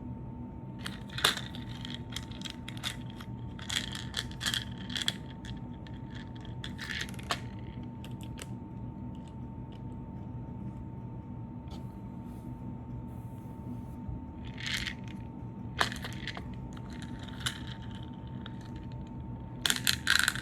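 Slime being squished and worked by hand, with bursts of sharp crackling and popping clicks.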